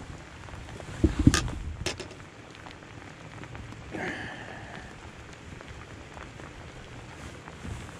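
Rain pattering steadily, with a few sharp knocks between one and two seconds in and a short high squeak about four seconds in.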